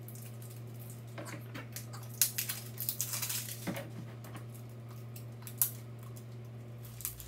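Plastic wrap crinkling as it is peeled off small plastic slime tubs, with light clicks and taps as the tubs are handled and set down on a table. The handling is busiest from about two to four seconds in, over a steady low hum.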